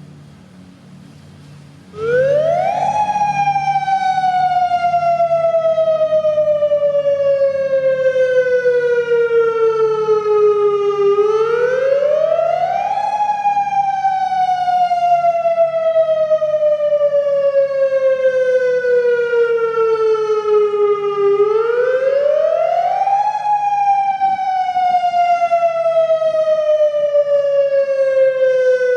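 Federal Signal Modulator 3012 outdoor warning siren starting up about two seconds in and sounding its wail, the signal of a routine siren test. Each cycle the pitch climbs quickly, then slides slowly down over several seconds, three times over.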